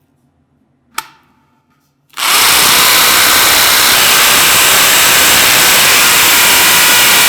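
Ronix 2216 corded impact drill with a 10mm concrete bit starting up about two seconds in and hammer-drilling, loud and steady. A single sharp click comes just before it, about a second in.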